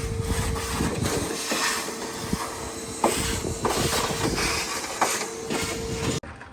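About six seconds of loud metalwork on the car's steel floor pan: a hissing, crackling noise over a steady hum. It starts abruptly and cuts off suddenly near the end.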